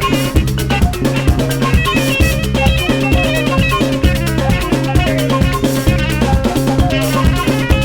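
Upbeat background music with a steady drum beat and a bright melody.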